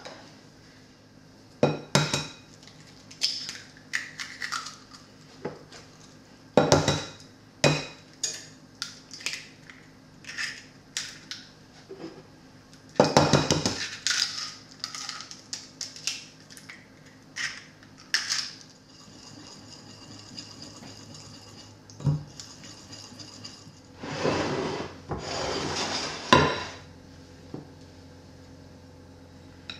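Kitchen prep sounds while a boxed chocolate cake batter is made: a string of sharp clinks and taps of a measuring cup, eggs and utensils against a glass mixing bowl, with a longer, denser burst about halfway and another near the end.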